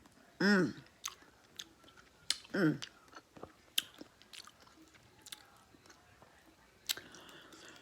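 Close-miked chewing of food with wet mouth clicks and lip smacks, and two short hummed vocal sounds about half a second and two and a half seconds in.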